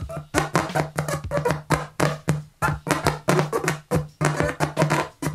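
Music played back from a peeled-off wood-glue cast of a vinyl record's grooves at 45 rpm, broken by frequent sharp clicks as the stylus keeps jumping. The grooves in the glue are too shallow to hold the needle, so it skips constantly.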